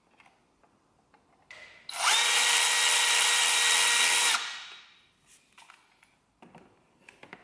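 Small cordless power driver spinning at a steady pitch for about two and a half seconds, after a brief faint burst just before, as it undoes the fastening on the intake pipe at the throttle body. It then stops, followed by a few light clicks and knocks of handling.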